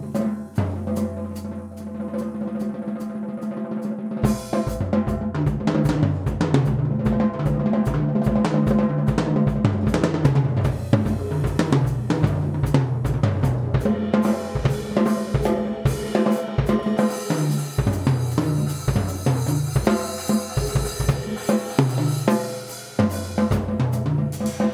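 Pearl acoustic drum kit playing a busy funk groove, with snare, cymbals and fills over steady kick-drum beats that start about four seconds in. A low bass line moves underneath.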